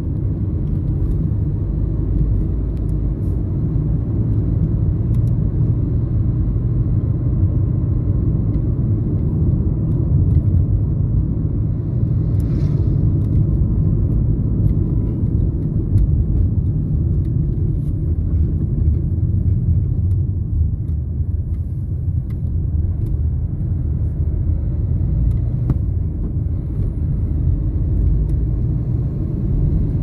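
Car cabin noise while driving on a paved road: a steady low rumble of tyres and engine.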